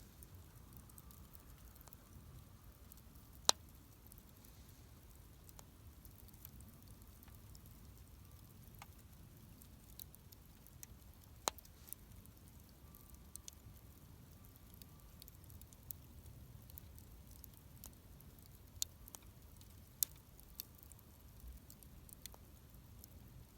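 Wood campfire crackling: sparse, irregular sharp pops and ticks over a low, steady background, with three louder snaps, one a few seconds in, one near the middle and one near the end.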